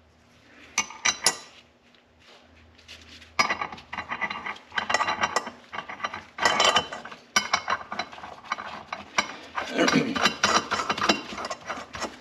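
Ratchet wrench clicking in repeated bursts as the nut is run down on a reassembled snowmobile primary clutch, with a few metal clicks about a second in.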